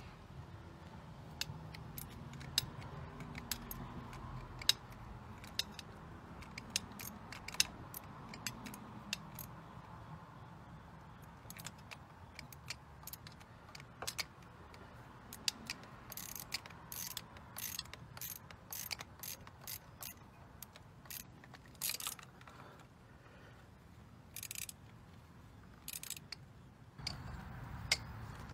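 Ratchet wrench clicking in quick runs as the fuel rail bolts are run back in, with scattered sharp clicks of tools and metal parts.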